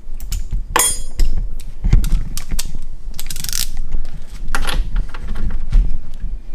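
Metal workshop clatter of irregular knocks and clicks, with a short ringing clank about a second in and a brief scrape a little past the middle. It comes from a Showa motocross fork being clamped in a vise and its top cap tightened with hand tools.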